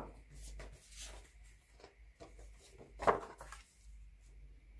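Sheet of white cardstock being handled and laid flat on a craft mat by hand: soft paper rustles and rubs, with one sharp tap of the card meeting the mat about three seconds in.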